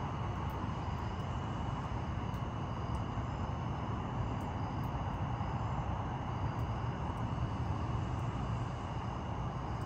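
Steady low rumble of outdoor background noise, even throughout with no sharp thunderclaps, and a thin steady high-pitched tone over it.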